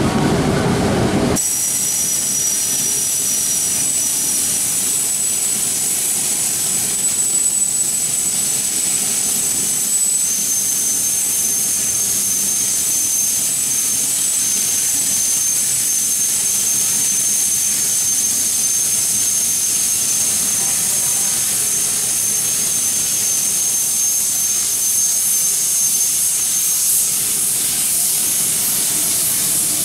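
Steam locomotive letting off steam: a loud, steady hiss with a thin high whistling tone in it, starting abruptly about a second in; the tone steps slightly in pitch about ten seconds in.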